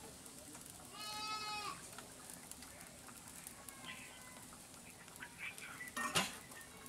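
A goat bleats once in the background about a second in, one held call. Near the end comes a single sharp metallic clank as a steel bowl is set down by the stove.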